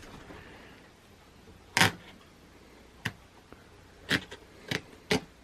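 A blade cutting into a camera pouch, heard as about five short, sharp clicks and snaps spaced roughly a second apart. The first is the loudest.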